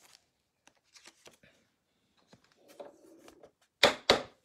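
Trading cards being handled and sorted on a table: scattered light clicks and soft rustles, then two sharp, louder card sounds close together near the end.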